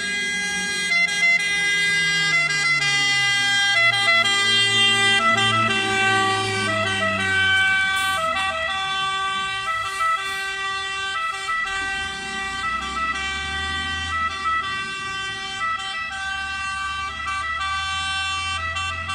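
Iveco Magirus Turbotech fire engine on an emergency run, its siren sounding steady tones that step between pitches. The truck passes close by and drives away, and its diesel engine note drops in pitch as it goes.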